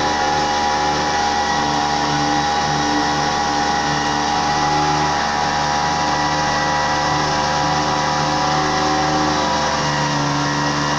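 Motorboat engine running steadily, a constant drone that holds the same pitch throughout.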